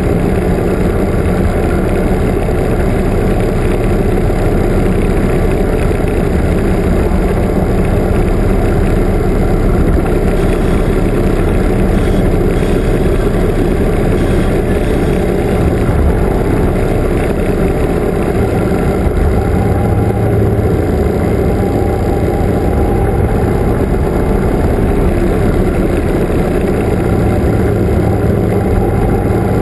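Touring motorcycle's engine running steadily while riding, heard from on the bike itself, mixed with wind and road noise and the motorcycles following close behind.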